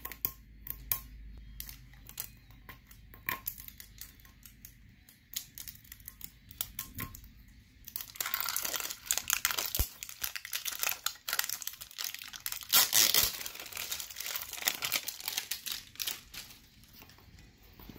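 Plastic shrink wrap being picked at, torn and peeled off a Great Ball tin: scattered light clicks at first, then about eight seconds of dense crinkling as the wrap comes off.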